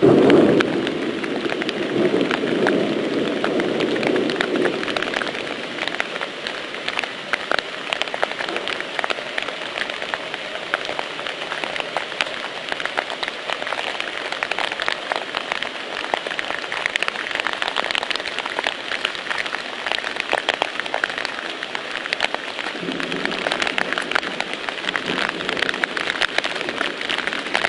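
Steady pattering of water, a dense hiss of many small drops, with a lower rumble for the first few seconds and again near the end.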